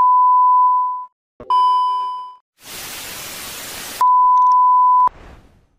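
Television test-pattern tone beeping three times, one steady high tone each time, with a burst of TV static between the second and third beep; the last beep cuts off suddenly.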